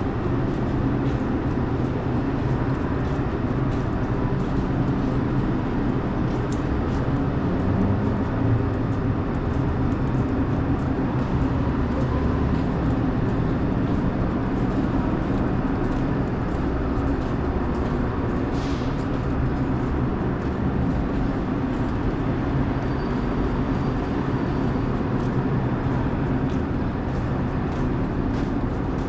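Steady city street traffic noise: a constant low rumble of vehicles with no single event standing out.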